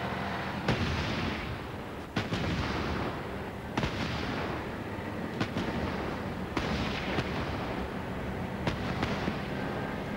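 Gunfire on a military firing range: sharp shots at irregular intervals, roughly one a second, each trailing off in an echo.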